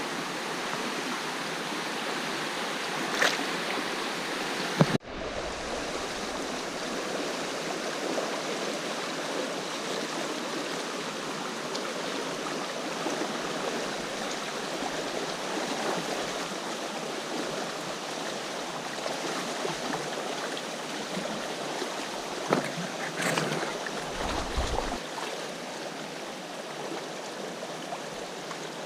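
River water rushing and flowing steadily over a trout stream. The sound briefly cuts out about five seconds in, and there are a few short knocks near the start and again toward the end.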